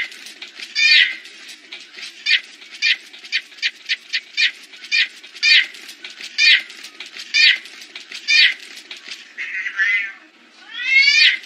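Domestic cats squabbling in a fight: short, high-pitched falling cries about twice a second, briefly faster a few seconds in, then a longer rising-and-falling yowl near the end.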